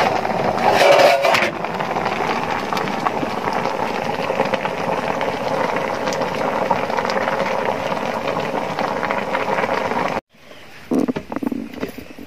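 A pot of maize cobs boiling on a firewood stove, giving a steady rushing, bubbling noise as its metal lid is lifted off near the start. The noise stops abruptly about ten seconds in, followed by quieter sound with a few light knocks.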